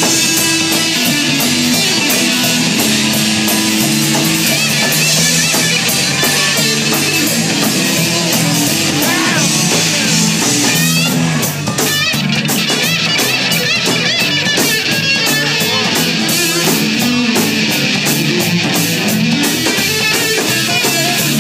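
Instrumental section of a rock song: electric guitar, bass and drum kit playing with a steady beat, no vocals.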